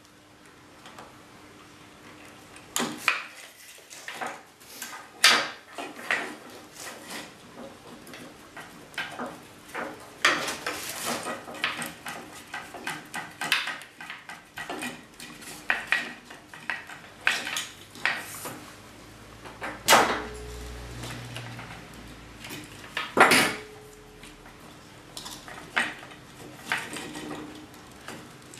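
Irregular clicks, taps and knocks from a plastic hoist pendant control and its cable being handled on a steel workbench, a few knocks louder than the rest. A faint steady hum runs underneath.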